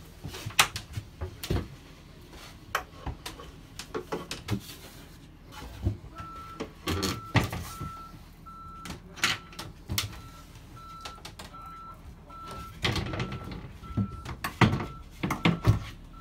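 Knocks and clatter of wooden locker lids and panels being moved and handled inside a yacht's cabin. From about six seconds in, a vehicle's reversing alarm beeps steadily, a little more than once a second, over a low hum.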